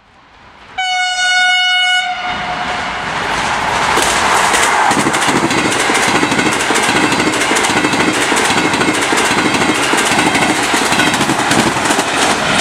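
EKr1 high-speed electric multiple unit sounding one steady horn note for about a second, then running past with its wheels clattering rhythmically over the rail joints.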